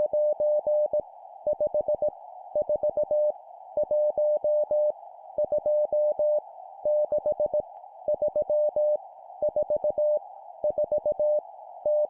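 Morse code for random digits, sent at 17 words per minute as a single steady beep tone keyed on and off in dits and dahs. Each character is a short cluster of pulses, with a brief pause before the next one, over a steady hiss pitched around the tone.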